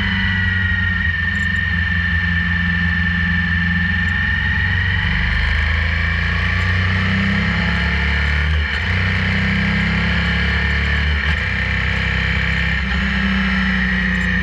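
Motorcycle engine running steadily at cruising speed, heard through a bike-mounted action camera, with a steady high whine over it. The engine sound dips briefly twice.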